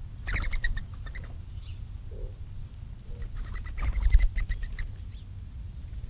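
Mourning dove wings whistling as a dove flies in and lands: a fast run of about ten whistling pulses a second, heard twice, about half a second in and again around three to four and a half seconds in. The second run comes with a low buffet of wingbeats close by.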